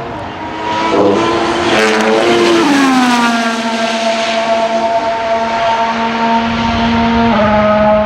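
Alpine A523 Formula 1 car's 1.6-litre turbocharged V6 engine. Its note jumps between pitches with a few sharp cracks over the first two seconds or so, then glides down and holds one steady note for several seconds, dropping a little lower near the end.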